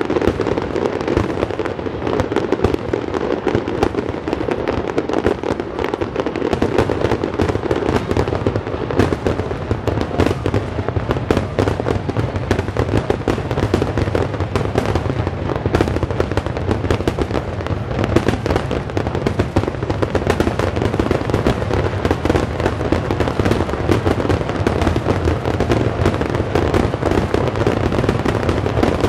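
Fireworks display: a dense, continuous barrage of bangs and crackling, with no pause.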